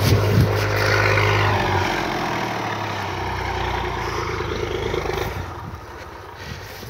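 IMT 539 tractor's three-cylinder diesel engine running steadily as it hauls a load of firewood through snow, fading over the last couple of seconds.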